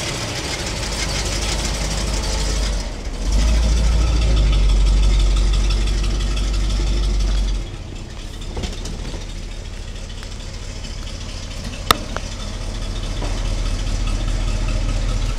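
1969 Cadillac de Ville's 472 cubic-inch V8 running with a deep, steady rumble. It jumps louder about three seconds in and drops back about eight seconds in, and there is a single sharp click near the end.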